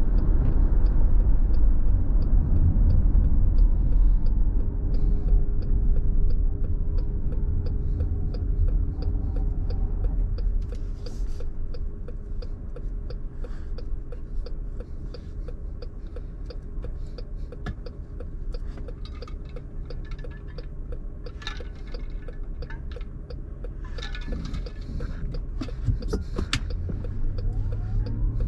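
Car cabin road noise: tyre and engine noise fading as the car slows off the freeway and comes to a stop, then a quieter idle. A faint, steady, fast ticking runs underneath.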